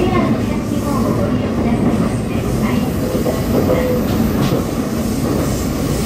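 Running noise of a JR EV-E301 (ACCUM) battery-electric train heard inside the car: a steady rumble of wheels on the rails as it travels at speed.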